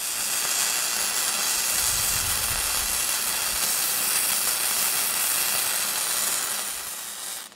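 Self-shielded flux-cored wire welding arc running a flat-position butt weld, a steady hiss with spatter, that stops abruptly near the end as the arc is broken.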